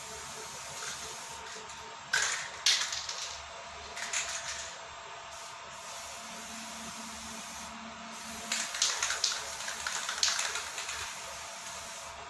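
Aerosol spray-paint can hissing in short bursts: one at about two seconds in, another just under a second later, one at about four seconds, then a quick run of short sprays near the end.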